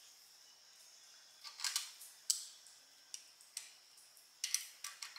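Irregular sharp metallic clicks and ticks from a hand tool on the carburetor studs as they are worked loose from the aluminum intake manifold.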